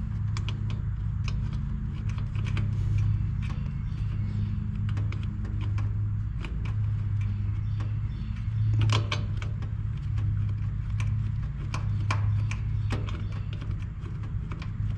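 A hand tool clicking and scraping against metal fittings at the base of an outdoor air-conditioning condenser, many small irregular clicks over a steady low hum.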